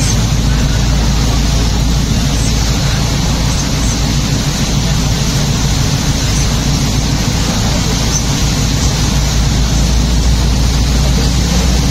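Steady cabin noise of a car driving on a rain-soaked highway in heavy rain: a deep, even rumble with the hiss of wet road and rain on the car.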